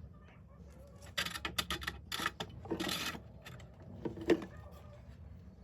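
Handling noise: about two seconds of irregular rustling and scraping, then a single sharp knock a little after four seconds in.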